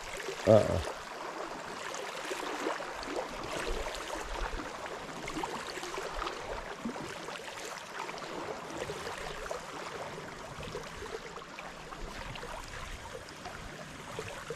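Small waves lapping at the lake shore, a steady gentle wash of water, with a short loud thump about half a second in.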